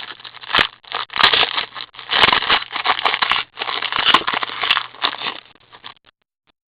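Crinkling and tearing of a 2014-15 Black Diamond hockey card pack's wrapper as it is pulled open, in ragged crackling spells with a few sharp snaps, stopping about six seconds in. These packs are stiff and hard to tear open.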